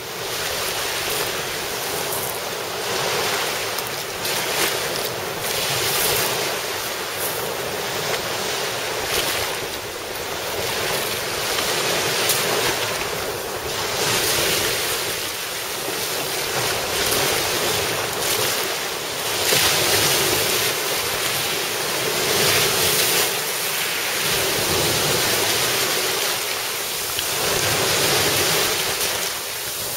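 Sea surf washing onto the shore, swelling and easing every few seconds, with wind buffeting the microphone.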